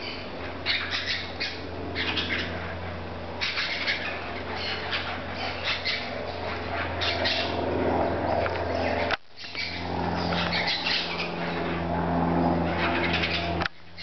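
Small green parakeets giving short, high, scratchy chirps over and over, against a steady low hum that grows louder in the second half. The sound cuts out briefly about nine seconds in.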